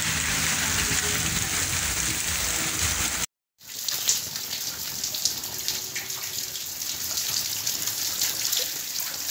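Heavy rain pouring onto a paved street, a dense steady hiss. About three seconds in the sound cuts out for a moment and comes back as a thinner, brighter patter and splashing of rain and running water.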